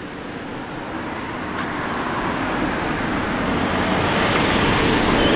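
A car approaching along the road, its tyre and engine noise growing steadily louder.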